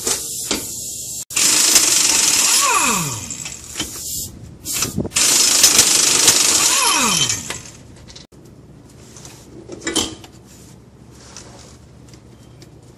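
Pneumatic impact wrench hammering on the pinion nut of a Dana 35 axle in two bursts of about two seconds each, its pitch falling as each burst ends, to break the nut loose so the yoke can come off.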